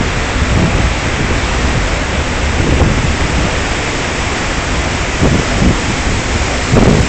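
Steady, loud rushing noise of wind over a phone's microphone and churning water from a ship's wake, with gusty low rumbles rising and falling.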